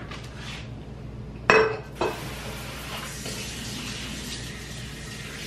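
A glass vase clinks against a hard surface with a short ring about a second and a half in, then a smaller knock. A kitchen tap then runs steadily, filling the vase with water.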